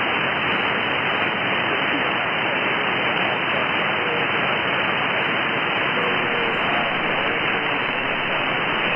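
Steady shortwave hiss and static from an SDR receiving upper sideband, with a weak station's voice faintly audible under the noise in the middle.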